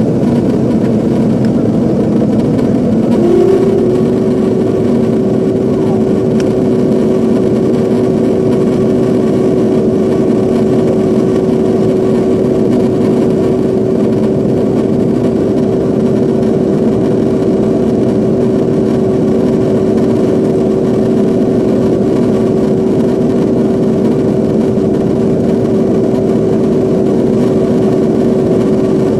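Jet airliner cabin noise during the climb after takeoff: a loud, steady rumble of engines and airflow heard from a window seat. A steady droning tone joins about three seconds in and holds.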